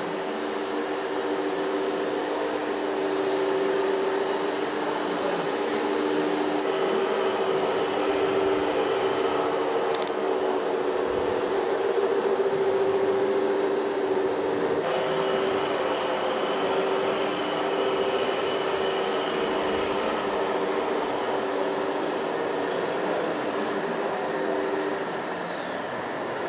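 Radio-controlled skip-loader truck's motors running with a steady whine as its arms lift a loaded skip, the pitch shifting a couple of times before it stops shortly before the end.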